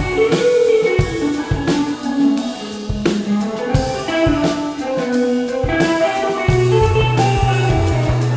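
Instrumental break in a rock song: a guitar melody over a drum kit, with the bass line coming back in near the end.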